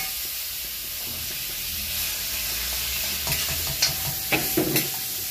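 Thin lumpia-wrapper batter sizzling in a hot nonstick frying pan over a gas burner, a steady hiss. A few sharp clicks and knocks, a metal ladle against the pan and pot of batter, come between about three and five seconds in.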